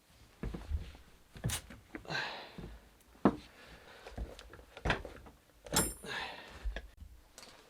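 Hand tools and metal steering-rack parts handled on a workbench: scattered clicks and knocks, with two short rubbing or scraping sounds and a brief high metallic ring just before the second one.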